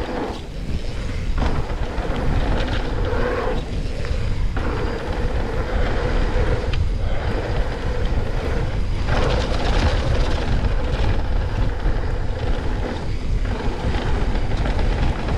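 Steady wind rush on the camera microphone mixed with tyre and frame rattle from a mountain bike riding down a dirt trail.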